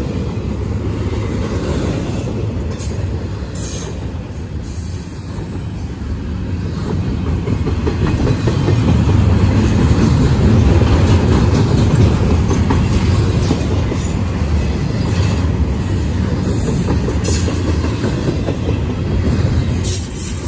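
Double-stack intermodal train's container well cars rolling past close by: a steady low rumble with the clatter of wheels over the rails, swelling louder about halfway through.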